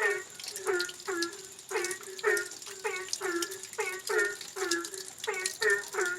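An animal calling over and over, about twice a second: short calls that each drop in pitch, with a faint steady hiss of rain beneath and a thin high tone held throughout.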